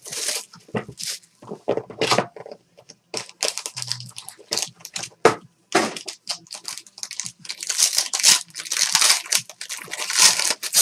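Crinkling and tearing of plastic and foil trading-card pack wrappers being handled and ripped open: many short, irregular rustles that get denser and louder in the second half.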